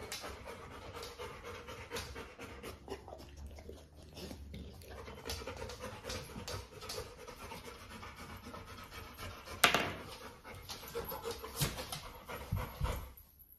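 Rottweiler puppy panting. A short sharp noise about ten seconds in is the loudest sound.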